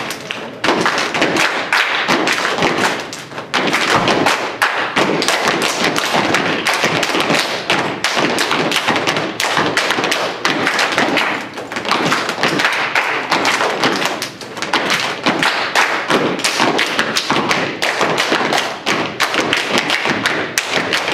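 A step team stepping: a fast run of foot stomps, hand claps and hand slaps on chests and thighs.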